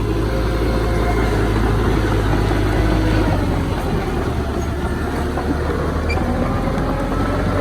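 Heavy diesel engine of earthmoving machinery running steadily, its note shifting about halfway through.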